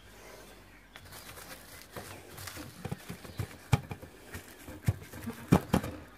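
Plastic cling film crinkling and crackling as a hand presses and smooths it down over the top of a brewing vessel. The crackling starts about a second in and has several sharper, louder crackles in the second half.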